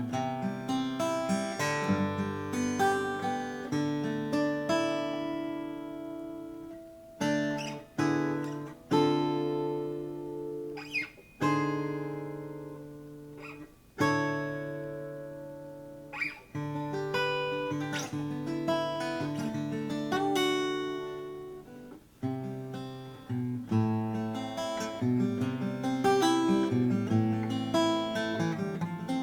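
1919 Martin 0-18 small-bodied steel-string acoustic guitar played solo, a mix of fingerpicked notes and strummed chords. In the middle some chords are struck hard and left ringing out until they fade.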